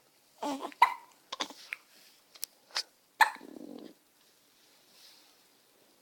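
A baby cooing and sneezing: a quick string of short coos, squeaks and a sharp sneeze-like burst with a buzzy tail a little after three seconds in, then quiet breathing.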